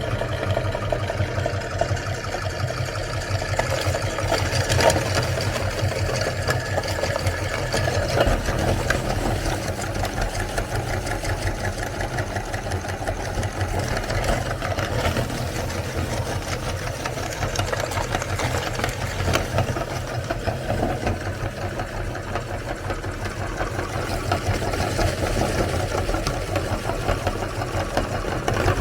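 Electric meat grinder running steadily, its motor humming under a continuous crackling as cookies are crushed through it.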